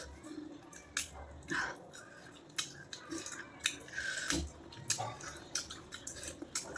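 A person eating close to the microphone: wet chewing and lip smacks with irregular sharp clicks, and a couple of short sucking or slurping sounds.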